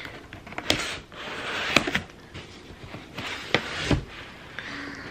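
Cardboard scraping and sliding as a shoebox is pulled out of a corrugated shipping box, in several rough strokes with a few sharp clicks, then a dull thump a little before four seconds as the box is set down on the table.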